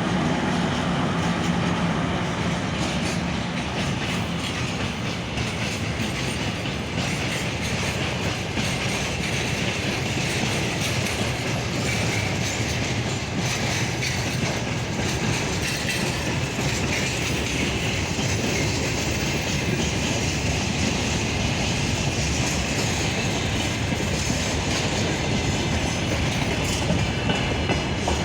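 2M62UM twin-section diesel locomotive running with a train, its diesel engines and the wheels clicking over rail joints making a steady rumble.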